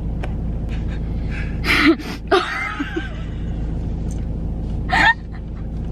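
A gasp, then laughter from a man and a woman in short outbursts about two seconds in and again near the end, over a steady low rumble inside a car.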